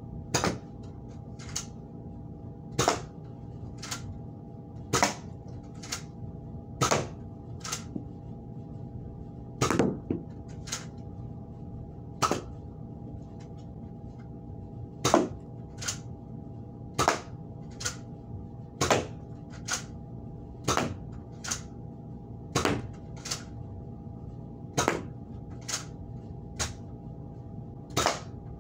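A Nerf blaster being fired over and over at cardboard targets: a long series of sharp snaps of shots and darts striking, roughly one every second or so, with a steady low hum underneath.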